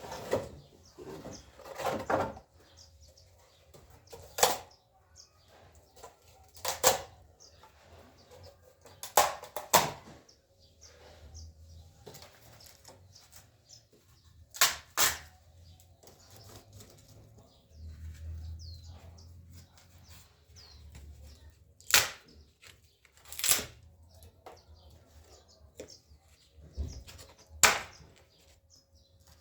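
Pieces of firewood and bark knocking and clattering as they are laid into a wood-burning stove: about a dozen sharp separate knocks, spread unevenly, with quieter rustling between them.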